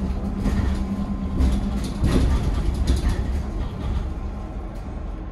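Cabin ride noise aboard a Heuliez GX337 Linium electric bus on the move. A low road rumble carries a faint steady hum, with knocks and rattles that are loudest about two to three seconds in.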